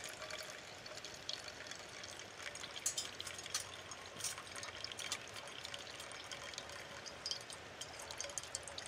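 Freshly brewed coffee trickling in a thin stream from a paper-filtered funnel into an enamel mug, with scattered small drips and ticks.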